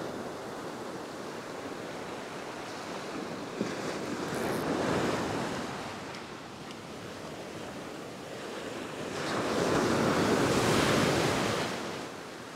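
Ocean surf breaking and washing up the beach around the feet of someone standing in the shore break. Two waves swell and fade, the second, about nine seconds in, the louder.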